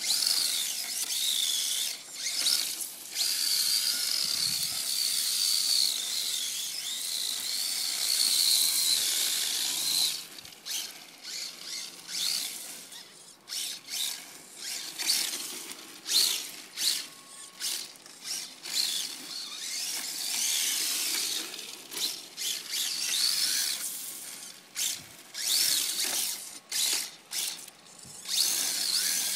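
Seben HR2 Nissan GT-R radio-controlled drift car with its small electric motor whining up and down with the throttle, and tyres scrubbing on asphalt as it slides. The sound is nearly continuous for about the first ten seconds, then comes in short throttle bursts with brief pauses.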